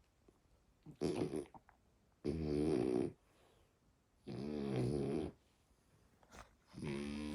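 French bulldog puppy snoring in its sleep, a snore about every two seconds, each with a clear, wavering pitch: three full snores, and a fourth starting near the end.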